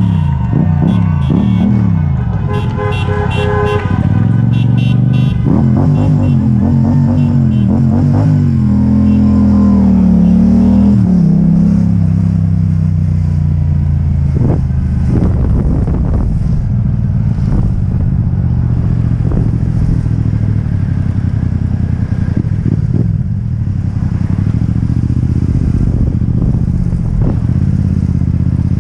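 Motor vehicle engine running in traffic, its pitch rising and falling with the throttle, with short horn honks in the first few seconds.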